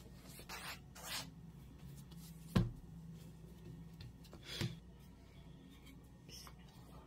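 Rolling pin working a sheet of dough on a board: a few short rubbing strokes, then two sharp knocks about two seconds apart, the first one the loudest.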